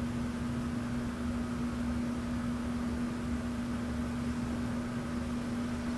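Steady background hum and hiss with one constant low tone: room tone, with no distinct sounds from the brush on the skin.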